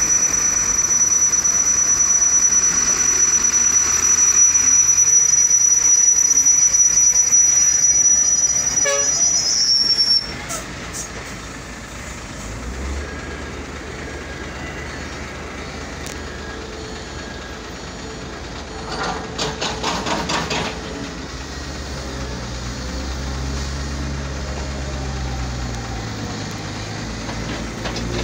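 A loud, steady high-pitched whine over working heavy machinery cuts off abruptly about ten seconds in. After it, a low diesel rumble from a crawler excavator continues, with a short run of clanks about twenty seconds in.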